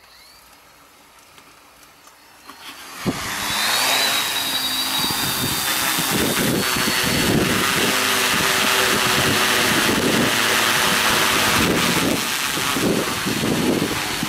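Quadcopter's electric motors and propellers starting about three seconds in, with a whine that rises in pitch during the automatic takeoff. It then settles into a steady, loud propeller buzz as the drone climbs.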